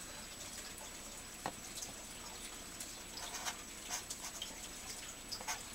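Felt-tip marker writing on notebook paper: faint scratches and small taps over a low steady hiss, busier in the second half.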